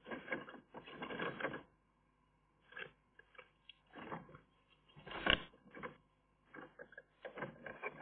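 Eurasian magpies moving about in their stick-and-mud nest: irregular scratchy rustles and scrapes of twigs and nest material, the loudest about five seconds in.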